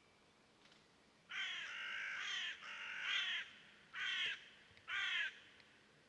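A bird calling four times from about a second in: two longer calls, then two short ones about a second apart.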